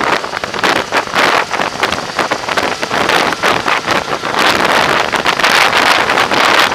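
Wind buffeting the microphone of a camera on a moving motorcycle, in loud, uneven gusts that grow stronger for the last two seconds or so.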